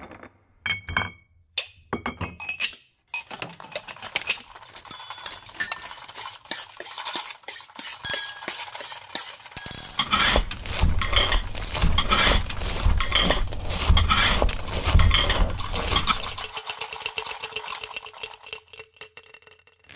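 Metal cutlery and kitchenware being handled: a few separate clinks with a short ring at first, then a dense run of rapid clattering. A low rumble sits underneath from about halfway until near the end.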